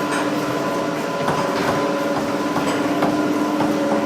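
Steady mechanical running hum with several fixed tones, overlaid by scattered light clicks and knocks, as from a ride on a cable-car or rail vehicle.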